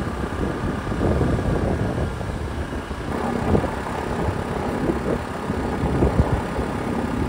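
Motor scooter running along at road speed, its engine tone steady, with wind buffeting the microphone in uneven gusts.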